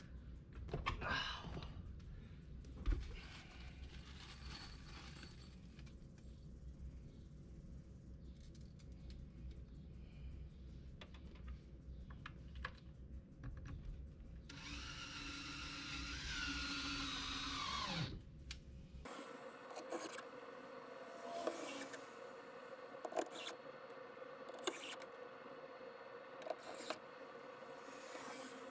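Cordless drill driving screws into a boat seat mount plate: a whine about halfway through that drops in pitch near its end as the screw seats, with scattered clicks and knocks of handling screws and tools.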